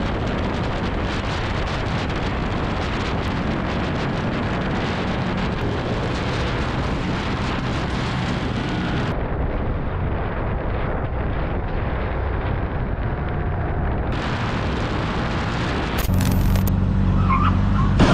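Steady rush of wind and road noise on a sportbike's onboard camera while riding at speed, with the engine running underneath. About two seconds before the end it changes to a motorcycle engine idling with a steady low hum.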